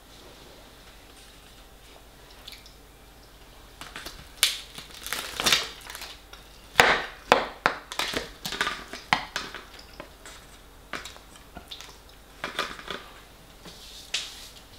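Metal fork scraping and clinking against an aluminium foil tray as food is scooped out: a run of short, sharp scrapes starting about four seconds in, loudest around the middle, then a few more scattered ones near the end.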